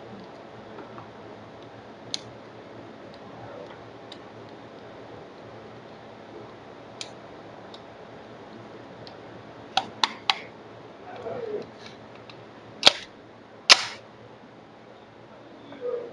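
Gunshots at a pistol range: scattered single cracks, a quick run of three about ten seconds in, and the two loudest shots near the end, each with a short ringing tail.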